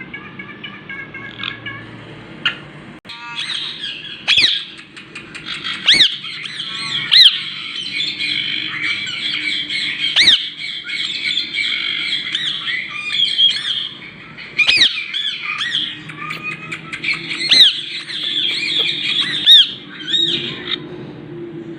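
Pet parrot squawking and screeching: loud, sharp shrieks every couple of seconds over continuous chattering calls. They start about three seconds in and stop shortly before the end.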